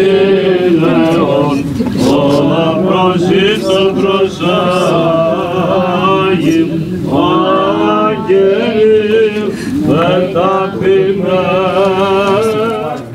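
Several voices singing a slow, chant-like hymn together, with melodies that rise and fall over a steady low held tone.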